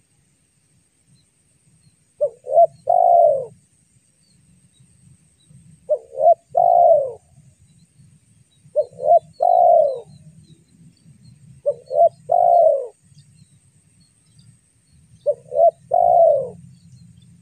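Spotted dove cooing: five calls about three seconds apart, each two quick short coos followed by a longer coo that falls in pitch.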